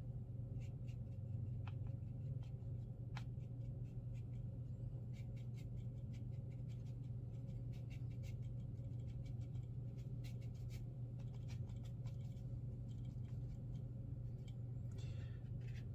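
Watercolor brush dabbing and scrubbing on rough watercolor paper, making many faint, irregular scratchy ticks, over a steady low hum.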